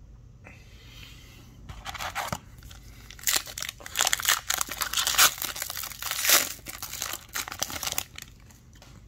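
Shiny foil wrapper of an Upper Deck hockey card pack being torn open and crinkled by hand, a rustling crackle that starts about two seconds in, grows loud in the middle and stops about a second before the end.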